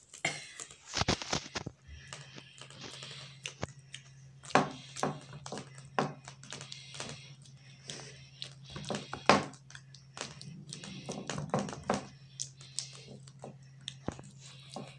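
Hands pressing and stretching oiled dough out on an aluminium baking tray, with irregular soft taps and knocks as fingers and palm push against the tray. A steady low hum runs underneath.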